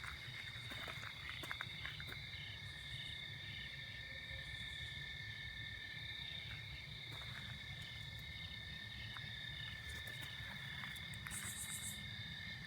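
Crickets and other night insects calling: a steady high trill with a regular pulsing chirp beneath it, and a few faint clicks in the first couple of seconds.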